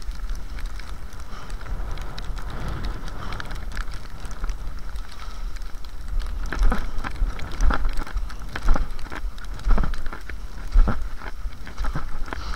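Classic cross-country skis hissing along packed snow tracks, with wind rumbling on the microphone. From about halfway on, a regular stroke of the skier's poling and kicking comes about once a second.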